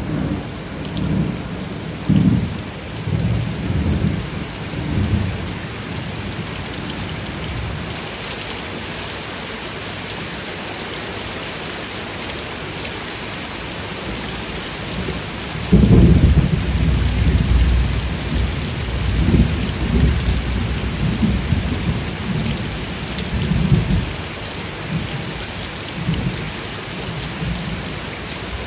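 Steady heavy rain hissing, with thunder: rumbles fading out over the first few seconds, then a sudden loud clap about halfway through that rolls on in waves for several seconds.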